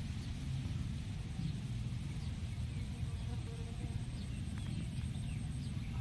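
Outdoor field ambience: a steady low rumble, like wind on the microphone, with many faint short chirps and a steady, faint high-pitched tone.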